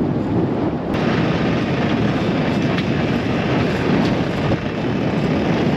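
Strong wind buffeting the microphone: a steady, loud, low rumble.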